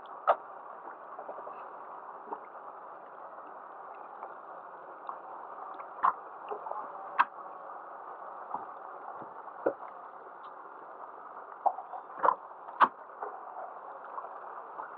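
Water lapping and gurgling against the hull of a small boat, with scattered light knocks and taps at irregular moments over a steady hiss.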